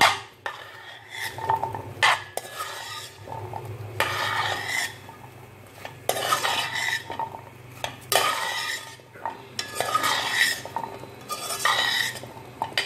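Cut carrots, bell peppers and onions being stir-fried in a non-stick pan: a metal spatula scrapes and tosses them in repeated strokes about every one to two seconds, with clicks of metal on the pan.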